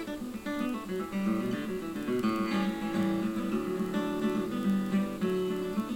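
Instrumental background music led by acoustic guitar, a picked melody over strummed chords.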